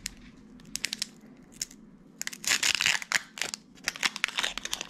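Foil wrapper of a Pokémon Darkness Ablaze booster pack crinkling and tearing as it is opened by hand: a dense run of crackles starting about two seconds in, with lighter crinkling near the end.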